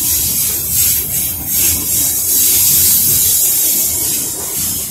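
Coal train's hopper cars rolling slowly past on steel rails: a low rumble of wheels with a high hiss over it that swells and eases every second or so.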